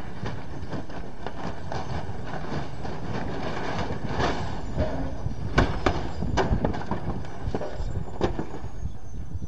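CH-47 Chinook tandem-rotor helicopter on the ground with its rotor system breaking up: a dense, rapid clatter of knocks and rattles with several louder bangs about midway, over a thin high whine that slowly falls in pitch.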